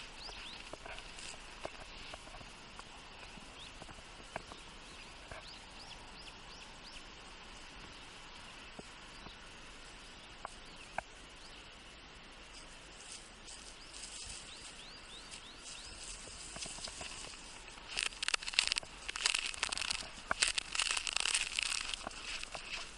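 Faint rustling and small clicks of a small dog nosing through snow-covered dry grass over a steady faint hiss, then, about three-quarters of the way through, louder irregular crunching of footsteps in snow.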